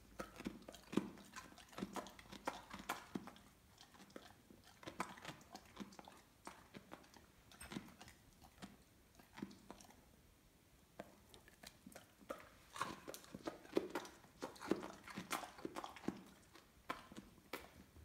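A Weimaraner chewing raw carrot sticks: irregular runs of sharp crunches, thinning out in the middle and coming thickest in the last few seconds.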